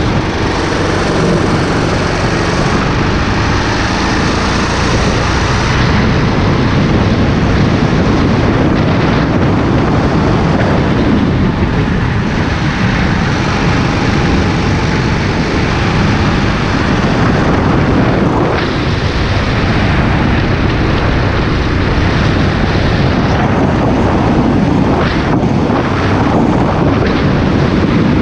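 Go-kart engine running at speed through a lap, heard from the driver's seat, with wind noise on the microphone.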